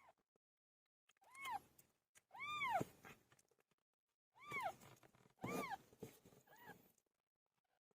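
Cat meowing: a string of about five short meows, each rising then falling in pitch.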